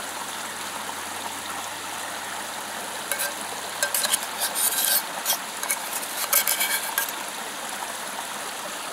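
Metal spoon scraping and clinking against a small metal cook pot as the last of the gravy is scraped out, in a scatter of short clicks and scrapes a few seconds in. A steady rushing hiss runs underneath.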